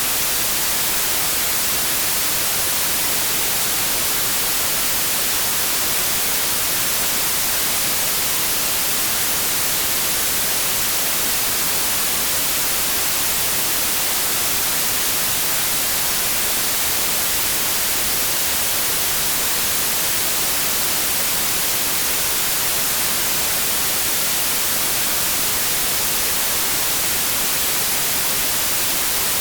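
Steady white noise: an even, unchanging hiss of static, brightest in the high frequencies.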